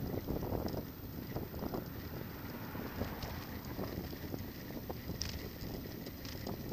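Bicycle riding along a road: wind buffeting the bike-mounted camera's microphone over a steady low rumble of tyres on pavement, with scattered small rattles and clicks from the bike.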